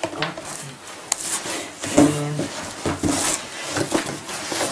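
Cardboard shipping box being handled: flaps rubbing and scraping against the boxed PC case inside, with small knocks and a brief pitched sound about two seconds in.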